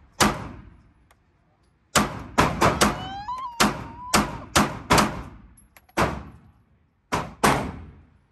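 Pistol shots at an indoor shooting range: about a dozen sharp cracks, each trailing off in the range's reverberation. One shot comes just after the start, then a quick string of shots over about three seconds, and two more near the end.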